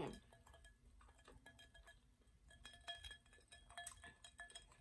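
Near silence with a few faint glassy clinks, about a second and a half, three and four seconds in: ice shifting in a glass of margarita.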